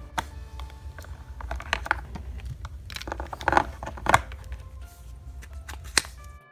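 Background music with a few sharp plastic clicks and taps from Play-Doh toy pieces and a Play-Doh tub being handled, the loudest about three and a half and four seconds in.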